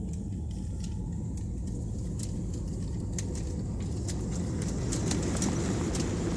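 Jet airliner heard inside the cabin, rolling down the runway for takeoff: a steady rumble of engines and wheels that grows louder from about four seconds in, with scattered light clicks and rattles.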